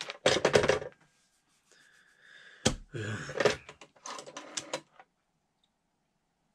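Red rotary telephone handled on a desk: the handset is set down in its cradle with a clatter, then about two seconds later it is lifted with a sharp click and more clatter. A quick run of clicks follows as the rotary dial is turned.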